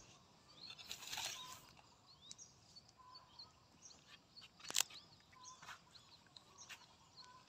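Faint outdoor ambience of small birds chirping in scattered short calls, with a few brief scrapes and knocks of a rake working loose soil, the loudest nearly five seconds in.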